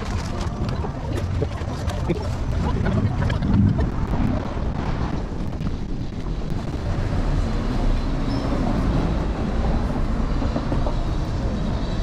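Steady road rumble and wind noise picked up by an action camera on the handlebars of a moving electric scooter, with scattered small knocks and rattles.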